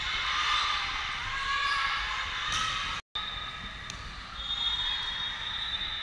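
Echoing sports-hall noise of an indoor volleyball game, with the ball struck a few times and a sharper hit at the end as a serve is made. The sound drops out completely for a moment about halfway.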